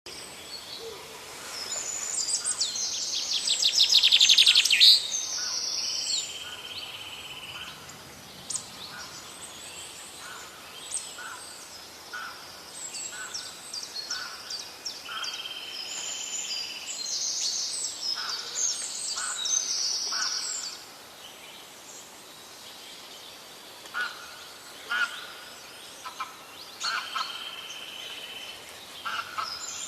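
Several songbirds singing and calling together: a loud, fast trill about three to five seconds in, long steady whistled notes that come back a few times, and short chirps throughout.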